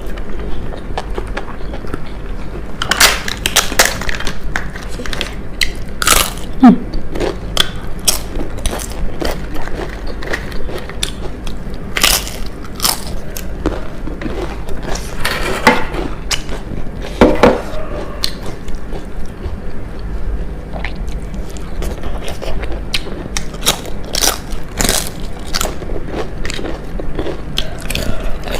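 A person biting and chewing crisp fried food, with many sharp, irregular crunches throughout.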